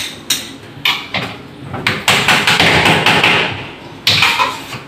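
Sharp knocks and taps from hanging-cabinet installation work, several single hits in the first two seconds, then a rougher stretch of steadier noise lasting over a second, and another knock near the end.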